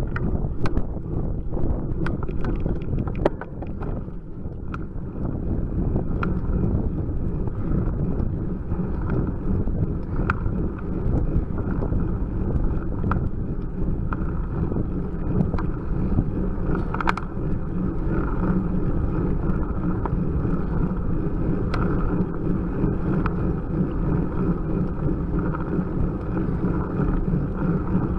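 Wind buffeting the microphone of a bike-mounted camera and the steady rumble of a road bicycle climbing slowly, with scattered sharp clicks and ticks.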